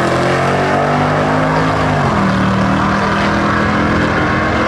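Two drag-racing cars, a wheelstanding Volkswagen Beetle gasser and a Camaro, at full throttle as they race down the strip. Their engines run loud and steady, and the note drops about two seconds in.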